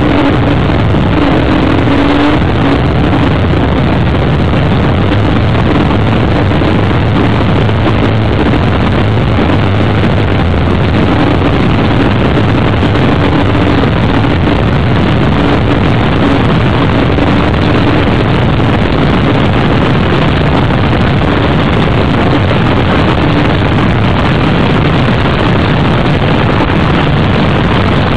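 Offshore racing catamaran's engines running at speed, a loud, unbroken drone with a steady, slightly wavering tone, mixed with the rush of wind and water past the boat.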